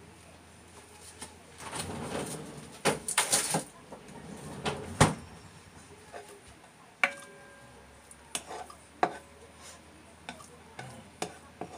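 Scattered clatter and knocks of a plastic spoon and a food tray against a frying pan as raw ground beef is scraped in and spread out. A knock about seven seconds in leaves the pan ringing briefly.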